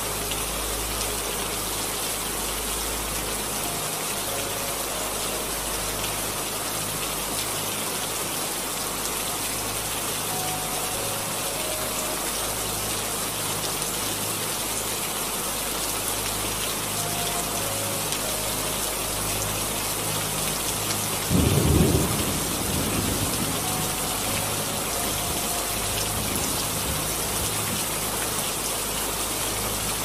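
Steady rainforest rain, with one short burst of thunder about two-thirds of the way through.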